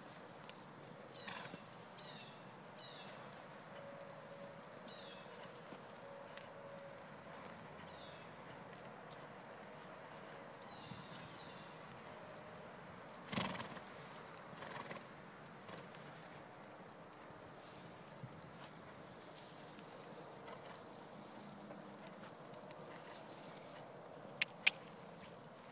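A paint mare and foal trotting on soft paddock dirt, their hoofbeats faint and muffled. Short high chirps come in the first half, with a steady high insect hum throughout, one brief louder noise about halfway through, and two sharp clicks near the end, the loudest sounds.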